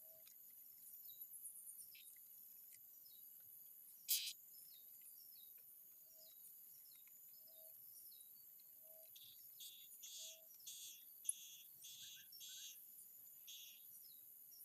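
Faint forest ambience: a steady high drone of insects, with short, high bird calls scattered through and a quick run of them in the second half. A low note repeats about every one and a half seconds, and a single sharp click comes about four seconds in.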